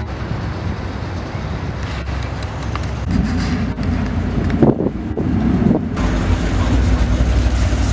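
Lifted pickup truck and other vehicles' engines running as the truck drives slowly through a parking lot, a steady low rumble. The sound shifts abruptly about three and six seconds in.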